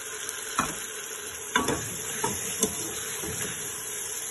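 A wooden spatula stirring chicken and spice masala frying in a pot, knocking against the pan about four times over a steady sizzle.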